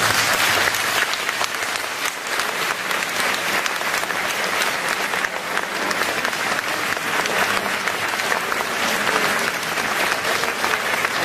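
A church congregation applauding: dense, steady clapping from many hands.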